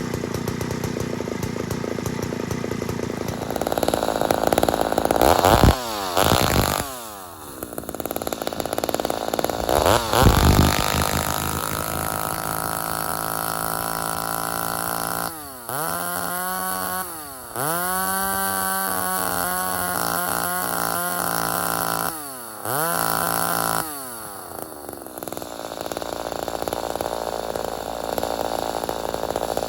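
Ported Homelite XL-76/XL-130 hybrid two-stroke chainsaw running. It is revved a couple of times, then held at full throttle three times, briefly, for about four seconds and briefly again, falling back to a lower speed in between and afterwards. It is being richened until it four-strokes at full throttle.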